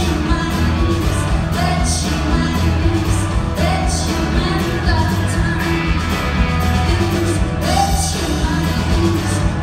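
Live rock band playing a song: electric guitars, bass guitar and a drum kit, with cymbal hits about once a second over a steady bass.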